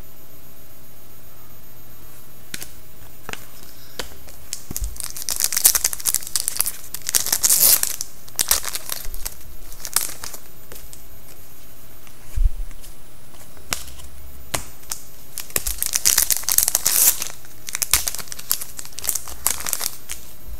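Trading-card packs (2011-12 Upper Deck SPX hockey) being torn open, their wrappers crinkling and tearing in two bouts of rustling several seconds long. A few dull knocks come in between.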